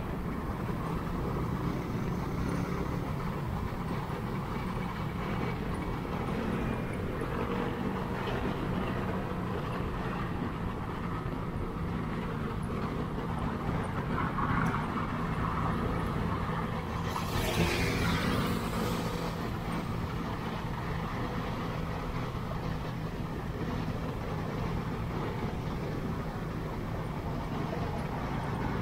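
Honda Click 125i single-cylinder scooter running steadily under way, with road and traffic noise. About seventeen seconds in comes a louder whoosh that falls in pitch.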